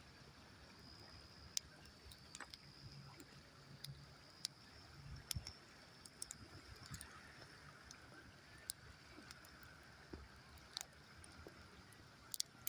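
Faint campfire crackling: scattered sharp pops and snaps, a pair of louder ones near the end, over a low steady hiss.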